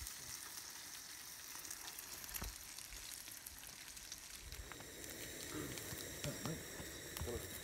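Food frying on the griddle of a camp stove, a steady sizzle with small pops and crackles: bacon, then sausages.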